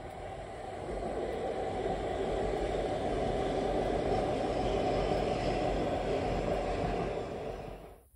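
Passenger train passing, heard through an open window: a steady running noise that swells about a second in, holds, and cuts off abruptly near the end.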